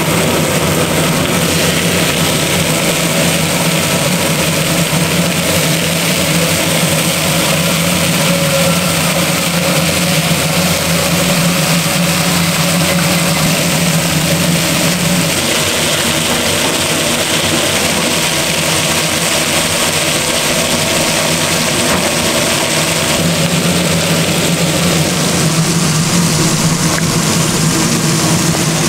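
A steady machine hum over a constant rushing noise. The low hum drops away for several seconds about halfway through, then comes back.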